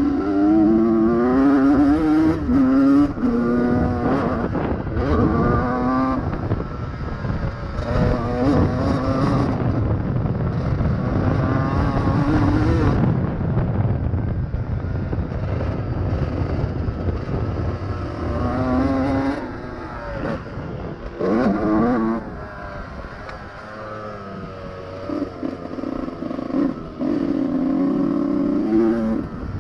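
2001 Honda CR125R two-stroke single-cylinder motocross engine ridden hard: the pitch climbs again and again as the throttle is opened through the gears, then falls away as it is shut off. Quieter and lower for a stretch in the last third.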